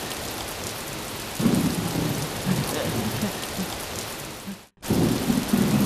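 Heavy rain pouring down steadily, with a low rumble coming in about a second and a half in. The sound cuts out for a moment near the end and then returns.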